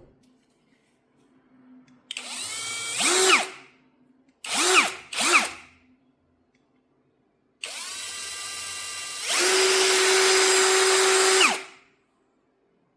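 Cordless 21V drill driver's motor run with trigger pulls. First comes a run of about a second and a half that speeds up, then two short blips, then a longer run of about four seconds that steps up to a faster, louder whine partway through before winding down.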